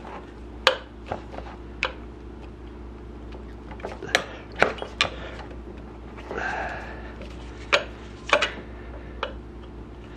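Screwdriver tip clicking and scraping against a split metal fork bushing as it is pried open on the inner fork tube: irregular sharp metal clinks, about ten of them, some loud.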